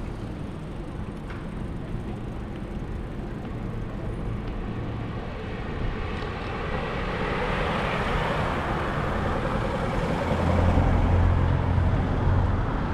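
Street traffic: a steady background of road noise, with a vehicle passing about halfway through and a low engine rumble from a heavier vehicle near the end.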